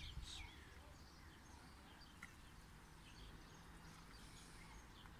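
Near silence: faint outdoor background with a low steady hum and a few faint, short bird chirps.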